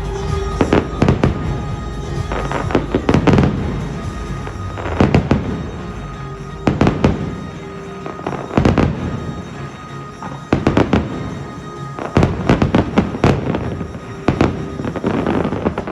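Aerial fireworks bursting in rapid volleys, a cluster of bangs every second or two, over music playing along with the show.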